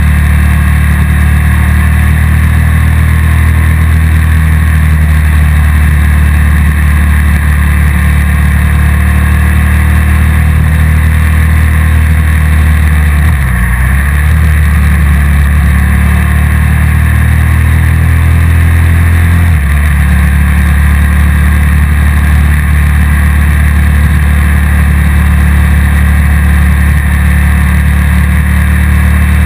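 Motorcycle engine running steadily under way. Its note drops briefly about thirteen seconds in and settles into a different pitch until about nineteen seconds in, when it changes back.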